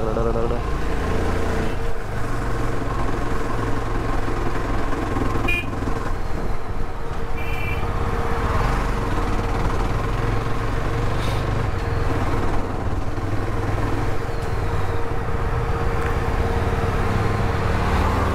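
Single-cylinder engine of a Yezdi motorcycle running steadily as it rides along. Two short high beeps come about five and a half and seven and a half seconds in.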